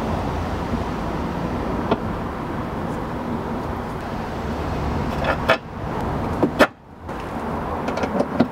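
Steady low rumble of background noise, with a few short metal clicks from a tool as a bumper mounting bolt is fitted.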